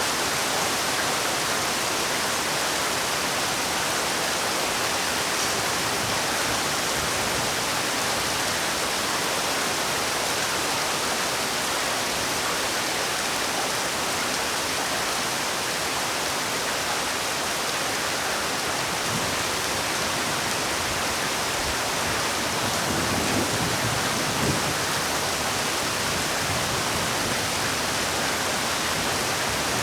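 Heavy rain falling as a steady, even hiss, briefly a little fuller and louder a little past two-thirds of the way through.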